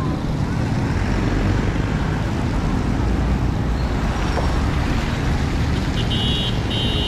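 Steady street traffic on a wet road, with car engines running and tyres passing. Two short high beeps sound near the end.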